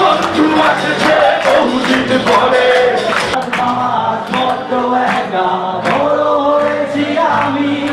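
A man singing a melody into a microphone with instrumental accompaniment, the accompaniment marked by regular short strokes.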